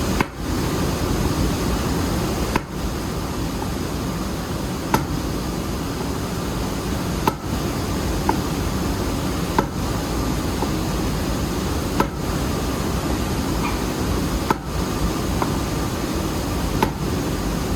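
Hammer knocks on metal, one about every two and a half seconds, over a loud, steady background noise.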